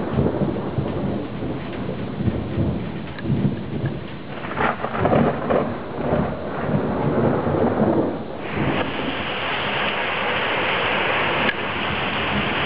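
Thunder rumbling and rolling over falling rain. About eight seconds in, the rain suddenly sets in harder as a steady, even hiss.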